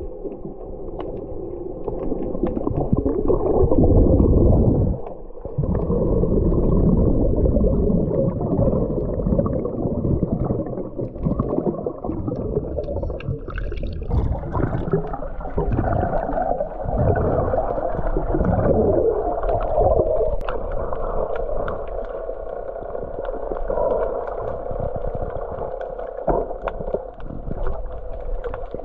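Muffled, continuous sloshing and gurgling of water as heard underwater, dull with no high sound in it.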